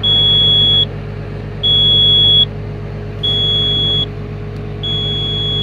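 Komatsu PW180 wheeled excavator's cab warning buzzer beeping in a steady on-off pattern, four high beeps just under a second each, over the engine running steadily. The alarm is the machine's warning of low brake oil pressure.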